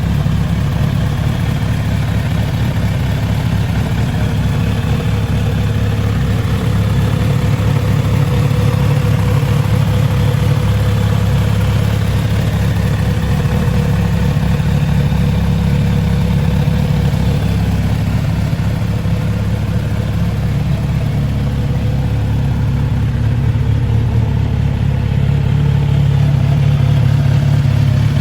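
Kawasaki Z900RS inline-four engine idling steadily.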